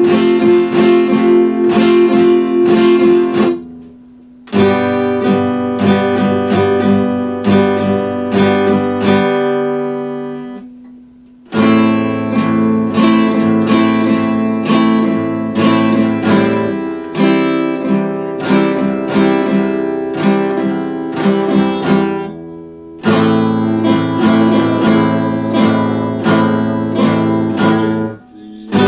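Epiphone acoustic guitar strummed in chord passages, broken by a few short pauses, with one chord left to ring out and fade before the playing starts again.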